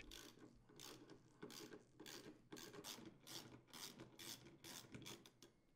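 Faint, uneven clicking of a hand-turned ratcheting 5/16-inch driver backing out refrigerator door-hinge mounting screws, about three to four clicks a second.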